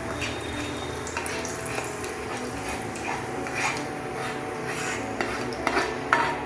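A cooking utensil scraping and knocking against a pan as sautéed onions and capsicum are scooped out into the gravy, with sharper clinks near the end.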